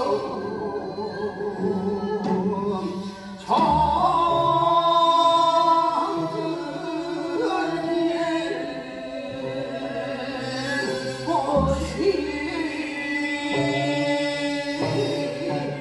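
Korean folk song (minyo) sung on stage by a woman and a man, in long held, wavering phrases. A louder phrase comes in about three and a half seconds in.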